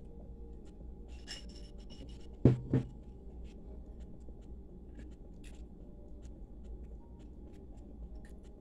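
A drinking glass set down on a table: two sharp knocks close together about two and a half seconds in, among small clicks and rustles.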